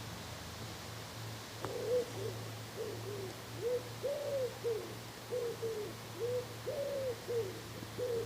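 A pigeon cooing: a run of short, arched coos, about two a second, beginning about one and a half seconds in, over a low steady hum.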